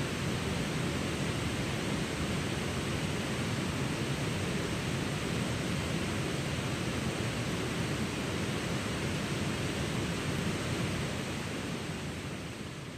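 Steady rush of flowing water with no breaks, beginning to fade out near the end.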